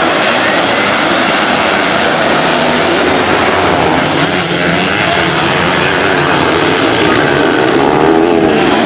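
Kawasaki Ninja 150 two-stroke single-cylinder racing engine running hard at high revs, loud and continuous, its pitch swinging up and down near the end.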